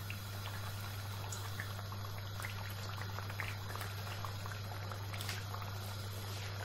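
Mashed-potato patties frying in hot oil in a pan: a steady sizzle full of small scattered crackles and pops, over a constant low hum.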